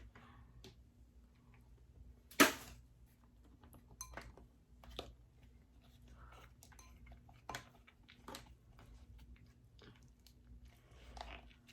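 Close-up eating sounds from a king crab meal: chewing, with irregular sharp crunches and clicks of crab-leg shell being handled and cracked. The loudest crack comes about two and a half seconds in.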